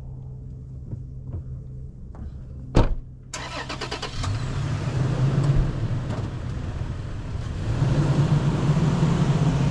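Toyota Tacoma pickup: a door shuts with a sharp thud about three seconds in, then the engine picks up and the truck pulls away across dirt. Its engine grows louder toward the end.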